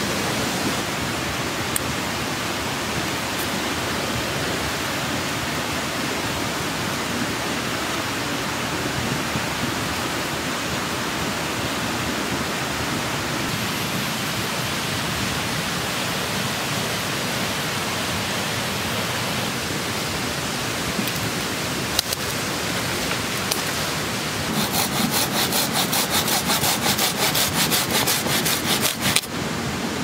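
River water rushing steadily. Near the end a fast, evenly repeating rasp runs for about five seconds, with a single sharp click a little before it.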